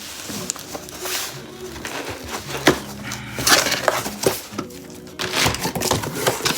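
Cardboard box and packaging being opened and unpacked by hand: irregular crinkling, rustling and knocks, loudest about halfway through.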